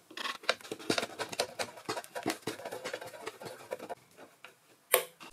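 A screwdriver unscrewing a small steel screw from the lathe's sheet-metal control box cover: a quick run of scratchy metal clicks and scrapes for about four seconds, then one sharp click near the end.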